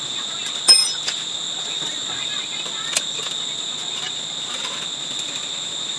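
Steady high-pitched trill of insects, like crickets, unbroken throughout. Just under a second in, a metal tool clinks once with a short ring, and a couple of lighter knocks follow as the mechanic works the inner tube out of a motorcycle tyre.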